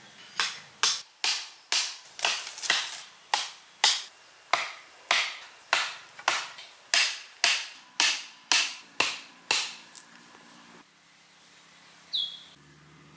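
Wooden stakes being driven into sandy ground with a wooden club: a steady run of about twenty sharp wooden knocks, roughly two a second, that stops about ten seconds in. A brief high chirp follows near the end.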